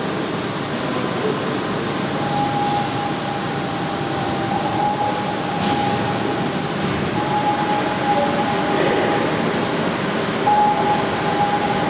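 Steady background noise of a large concrete underground hall, with a thin high tone that comes and goes.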